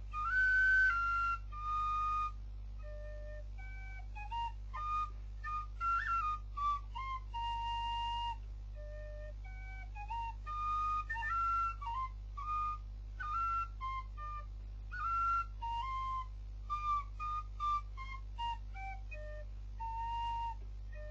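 Small wooden flute played solo: an improvised march tune in a traditional Chinese style, short high notes with quick slides between them, in phrases with brief pauses.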